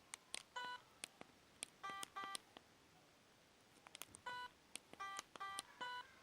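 ZTE F866 mobile phone's keypad: faint key clicks and short beeping key tones, one per press, in two runs of quick presses with a pause of about a second in the middle, as the menu is stepped through between ringtones.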